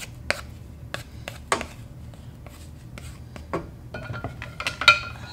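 Wooden turning stick and plastic spatula scraping and pressing stiff pounded-yam dough around a stainless steel saucepan, with scattered soft knocks against the pan. Near the end come a few sharper taps on the pan that ring, the loudest about five seconds in.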